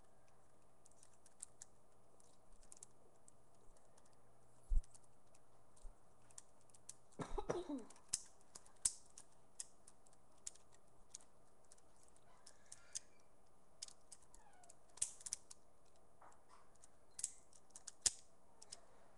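Lego balisong being flipped and swung: light, irregular plastic clicks and ticks as the Lego brick handles swing and knock together, with one low thump about five seconds in.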